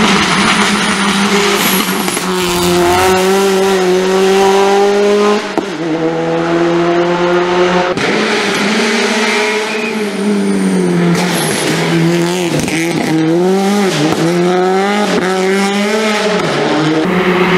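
Subaru Impreza rally car's flat-four engine running hard at high revs up a hillclimb. The pitch drops suddenly about five and eight seconds in, then dips and climbs several times in quick succession near the end as the car shifts and lifts off the throttle.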